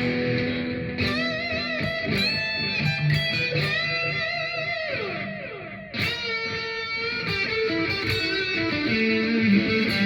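EVH Frankie electric guitar played on its neck pickup through an overdriven Plexi-style amp profile. It plays a lead line of held notes with wide vibrato; one note slides down in pitch about five seconds in, and a fresh ringing note is struck about a second later.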